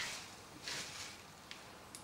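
Faint scraping and small metallic clicks of a magnetic screwdriver driving a screw into a motherboard standoff in a PC case.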